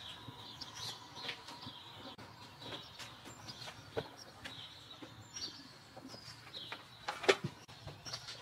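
Small birds chirping in the background, with a few sharp knocks and clatters of plastic plant pots and buckets being handled; the loudest clatter comes about seven seconds in.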